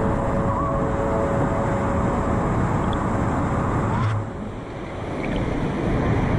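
Steady rush of waterfalls and moving water, heard from a camera right at the water's surface; the noise drops briefly about four seconds in, then returns.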